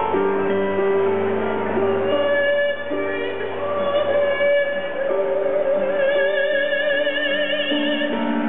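Song: a woman's voice holds one long high note with vibrato over instrumental backing, the vibrato widening in the second half.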